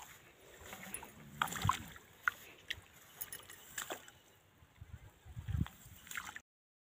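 Bare feet stepping through grass, with rustling, scattered soft clicks and a few low thuds. The sound cuts out abruptly near the end.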